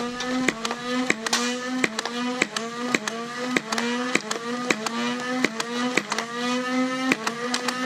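Nerf Rival Hera MXVII-1200 flywheel blaster firing semi-automatically in rapid succession, about two shots a second: the flywheel motors hum at a steady pitch, and each shot cracks and briefly drags the motor pitch down before it recovers.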